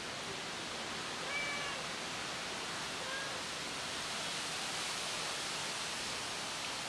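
Two short, faint cat meows, one about a second and a half in and a shorter one about three seconds in, over a steady background hiss.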